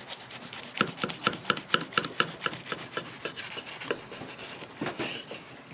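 Kitchen knife sawing back and forth through a crab cake slider's bun and fillings on a wooden cutting board, a run of short rasping strokes at about four a second that stops about four seconds in, with one more stroke near the end.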